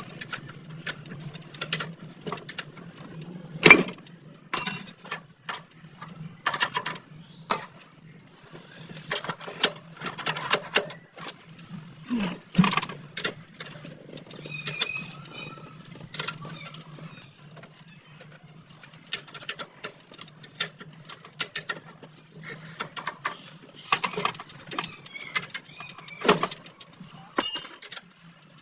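Scattered clicks and knocks of hand work on a motorcycle shock absorber, over a steady low hum.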